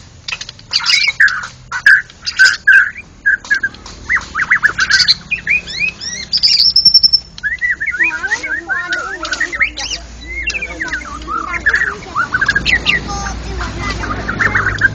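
White-rumped shama (murai batu) singing: fast, varied whistled phrases and chirps that pour on without a break, with a brief high steady whistle about six and a half seconds in.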